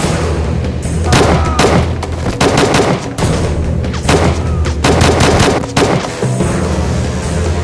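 Rifle gunfire in short rapid bursts, about one burst a second, over a loud action-film music score with a steady low bass. The shooting stops about six seconds in and the music carries on.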